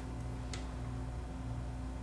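Quiet workbench room tone: a low steady hum, with one faint light click about half a second in.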